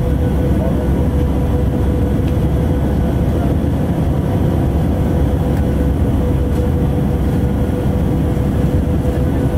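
Steady cabin roar inside an Airbus A319 airliner climbing after takeoff: engine and airflow noise, with a faint steady hum-like tone running through it.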